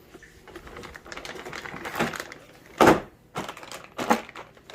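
Plastic diagnostic adapter connectors being handled and set down, a scattered run of clicks and clacks with the loudest knock about three seconds in.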